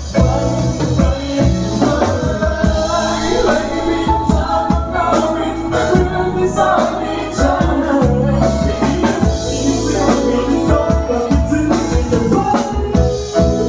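Live band playing a Thai pop song: a man singing into a microphone over drums, electric guitar and keyboard.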